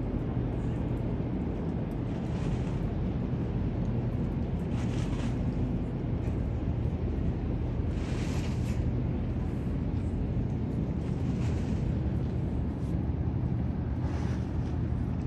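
Steady low rumble of outdoor city and river ambience, with short patches of higher hiss every few seconds.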